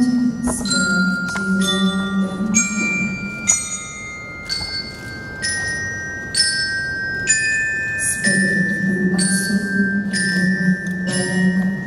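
Slow music on mallet percussion, glockenspiel-like: single struck notes ringing out, about one to two a second, over a low held tone that drops away in the middle and returns.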